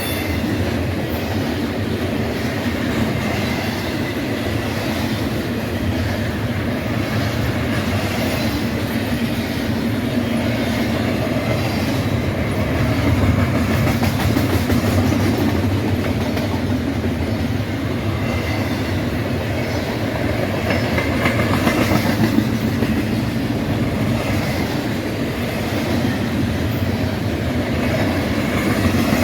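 Freight train cars rolling past, their wheels running steadily on the rails.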